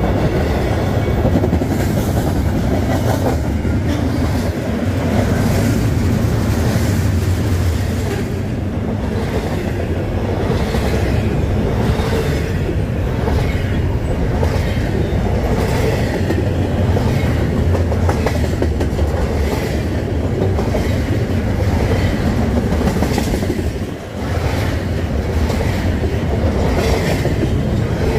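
Cars of a BNSF double-stack intermodal freight train rolling past: a steady heavy rumble with an even clickety-clack of the wheels over the rail joints. The noise dips briefly about 24 seconds in.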